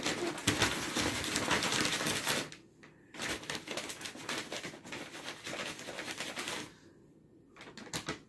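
Brown paper take-out bag crackling and rustling as a cat moves around inside it, in two bursts of a few seconds each with a short pause between, then mostly quiet apart from a brief rustle near the end.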